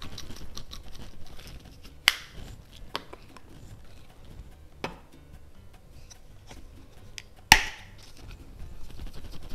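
Sharp kitchen knocks of utensils and cookware: four or five separate strikes spaced a second or more apart, the loudest near the end.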